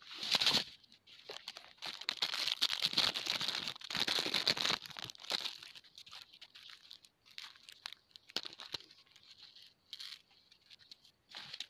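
Plastic crinkling and rustling as the clear protective film of a rolled diamond-painting canvas and small plastic bags of drills are handled. It comes in a brief burst at the start and a longer dense stretch a couple of seconds in, then a few short rustles.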